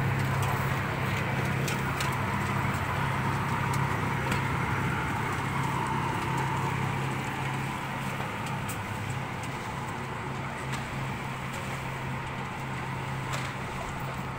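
A machine running with a steady low hum, with scattered faint clicks over it.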